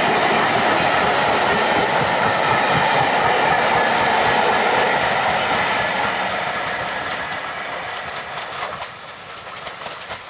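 Passenger coaches of a steam-hauled train rolling past, wheels clattering over the rail joints. Loud and steady at first, then fading from about halfway as the train draws away, the clicks of the wheels standing out near the end.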